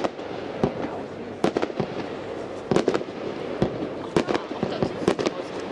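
Fireworks display: shells bursting in a rapid, irregular series of sharp bangs, about a dozen, some in quick pairs, over a steady background hiss.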